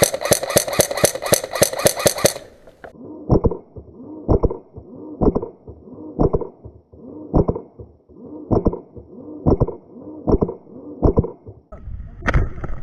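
Airsoft guns firing: a quick string of shots for about two seconds, then single shots about once a second.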